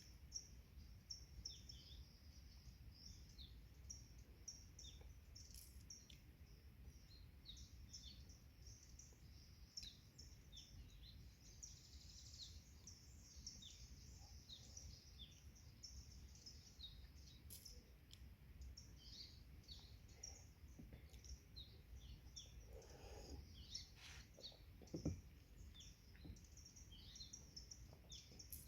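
Faint forest birdsong: many small birds giving short, high chirps over a steady low rumble of background noise. There is a single louder knock near the end.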